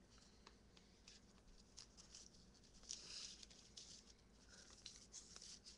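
Near silence with faint scattered clicks and a soft rustle about three seconds in: paper being handled quietly.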